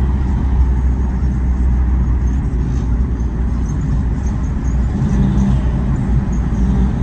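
Road and engine noise of a vehicle driving through city traffic, a steady low rumble.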